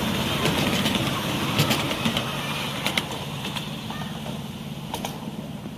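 Miniature railway train running along the track and away: a steady low hum from the locomotive with a few sharp clicks from the wheels on the rails, fading as it goes.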